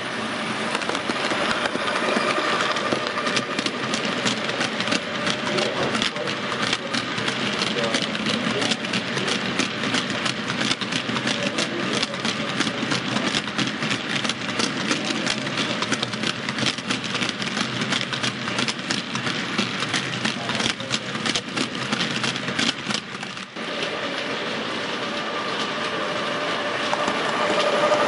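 7mm-scale model train: a diesel locomotive hauling a long rake of hopper wagons, the wheels clicking rapidly over the rail joints over a steady rolling rumble.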